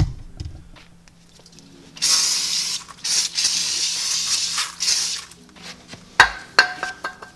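Aerosol can of brake parts cleaner spraying onto a new brake rotor in two hissing bursts, a short one and then a longer one of about two seconds. Near the end comes a sharp metallic clank with a ringing tone.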